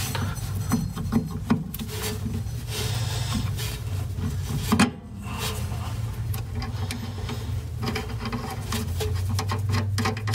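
Scraping and rubbing handling noise with scattered small clicks as a tie rod end and other steering parts are fitted loosely by hand, with one sharper knock about halfway through, over a steady low hum.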